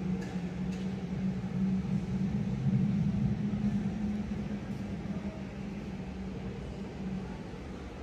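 Steady low hum with a deep rumble beneath it, swelling for a couple of seconds in the middle and easing off toward the end.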